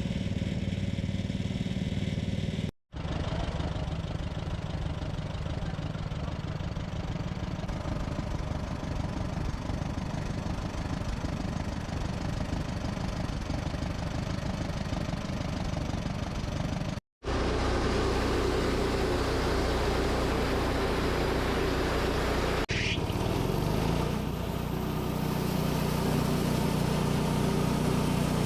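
Sawmill engine running steadily, with a continuous mechanical hum. It drops out abruptly twice for a split second, about 3 s and 17 s in, and is fuller and louder after the second drop-out.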